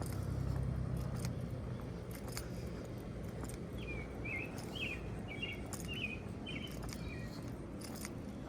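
A bird sings a short phrase of about six quick chirps a little before the middle, over a steady low outdoor rumble with a few faint clicks.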